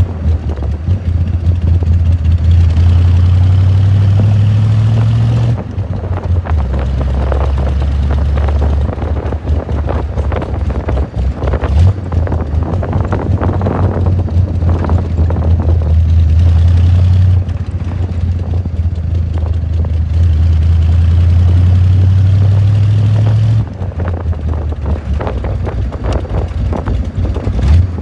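1949 Allard's engine pulling on the road, heard from the open cockpit. The engine note holds steady for long stretches, then drops and quietens a few times, about six, seventeen and twenty-four seconds in.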